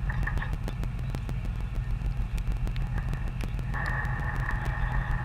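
A heavy vehicle's engine running steadily with a low rumble, with scattered light clicks and clanks. A steady high whine joins about four seconds in.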